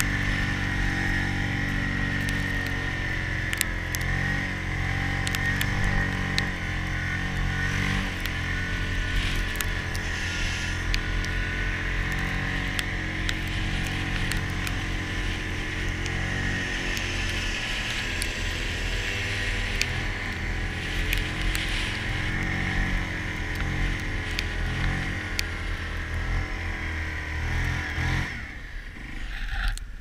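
Yamaha Grizzly ATV fitted with rubber tracks running steadily through snow: a low engine drone with a steady high whine on top and scattered clicks and knocks. The sound drops away quickly near the end.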